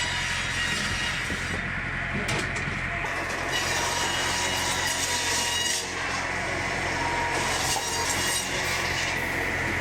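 Automatic firewood saw with a carbide circular blade and hydraulic feed running steadily while cutting logs: a continuous mechanical drone with a steady low hum.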